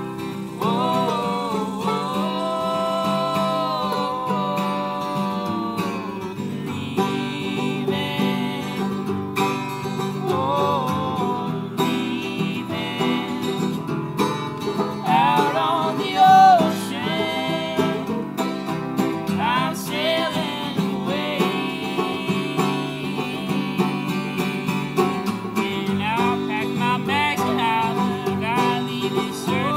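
Acoustic guitar and banjo playing an instrumental passage of a folk song, the banjo picking over strummed guitar. Wordless sung melody lines, with wide, wavering pitch, come in over parts of it.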